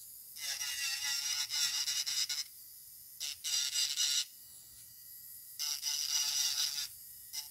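Electric nail file with a refiner bit carving into acrylic: a high-pitched grinding whine in three bursts, the first about two seconds long, each time the bit is pulled through the acrylic.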